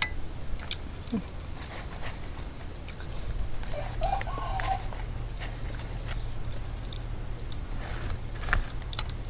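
Eating noises from a bowl of noodle soup: chewing, with scattered small clicks and taps, over a steady low hum. A brief squeaky pitched sound comes about four seconds in.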